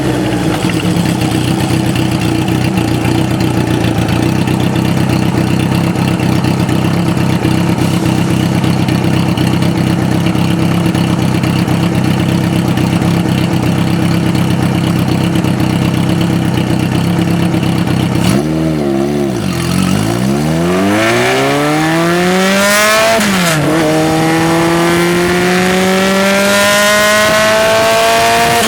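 Kawasaki 750RS (Z2) air-cooled inline-four motorcycle engine idling steadily, then the revs wobble and dip, climb in a long rise, drop sharply, and climb again more slowly.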